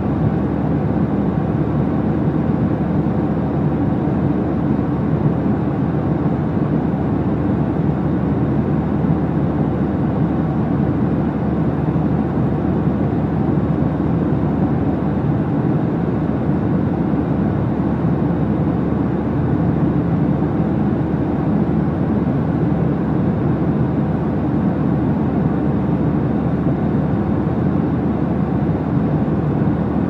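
Steady aircraft engine drone: an even, unchanging rumble with no breaks or shifts in pitch.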